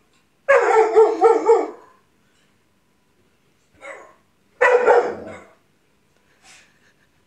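Dog barking: a quick run of about five barks about half a second in, then a short bark, a louder bark and a faint one spaced a second or so apart.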